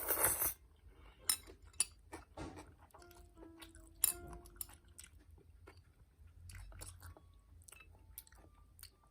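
A child chewing cold spicy bibim-myeon noodles with cucumber close to the microphone, with moist chewing and short crunchy clicks. A loud noisy burst comes right at the start.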